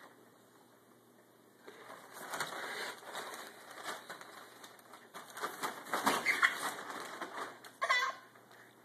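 Thin nylon fabric of a pop-up play tent rustling and flapping in uneven stretches as it is brushed and shaken. A short high squeal comes near the end.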